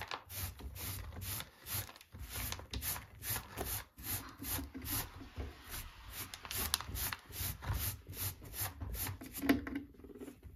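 Small plastic hand brush sweeping hay and litter across a textured plastic cage mat into a plastic dustpan: quick scratchy strokes, about two a second, with one louder stroke near the end.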